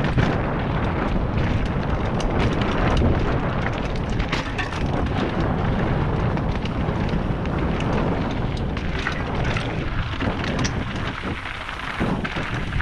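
Mountain bike descending a loose, rocky trail: the tyres crunch over gravel and stones, with frequent sharp clicks and knocks of the bike rattling over rocks, over a constant low rumble of wind on the microphone.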